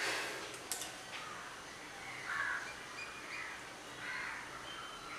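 Crows cawing several times in the background, the loudest call about two and a half seconds in. A short rustle and two light clicks come within the first second.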